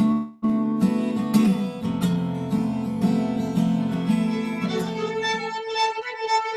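Acoustic guitar strumming chords in an instrumental passage between sung lines, cutting out briefly just after the start. Near the end the strumming stops and higher sustained notes carry on.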